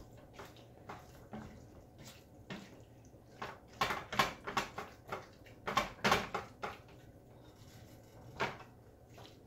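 Silicone spatula stirring and scraping minced raw beef around a nonstick skillet as it is lightly warmed: a series of soft, irregular scrapes and taps, with a few louder strokes about four and six seconds in.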